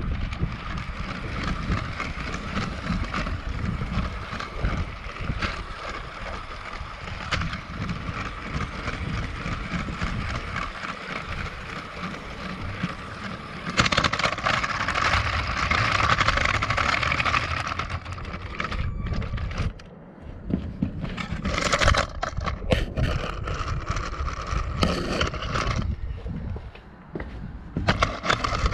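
Lego train's Power Functions motor running with a steady whine, its plastic wheels rattling and clicking along the Lego track, heard close up from a camera riding on the train. Wind rumbles on the microphone throughout. The running noise grows louder for a few seconds in the middle, and sharp clicks come through near the end.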